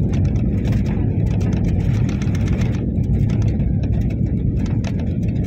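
Cabin noise of an Airbus A320-family airliner on its landing roll: a steady low rumble of engines and tyres on the runway, with small rattles throughout.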